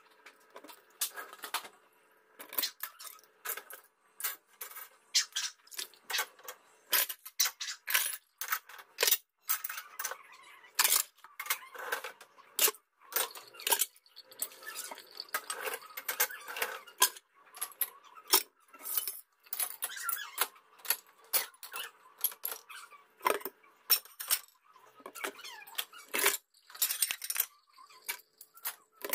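Ceramic bowls and plates and metal cutlery clinking and knocking together while dishes are rinsed and handled in a stainless-steel sink: many sharp clinks in quick, irregular succession.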